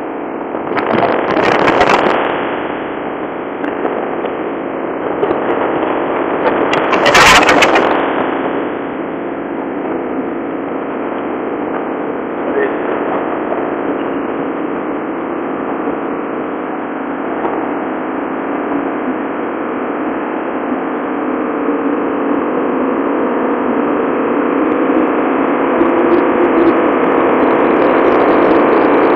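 Steady rushing of wind and sea on the open deck of a large ship underway. Strong gusts buffet the microphone about a second in and again about seven seconds in.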